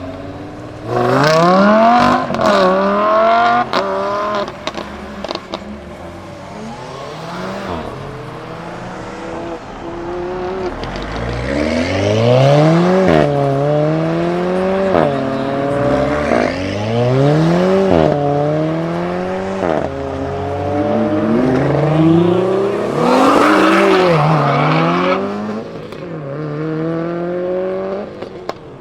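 Supercar engines accelerating hard away, revs climbing and dropping back again and again as they shift up through the gears, with a few sharp cracks in the first few seconds.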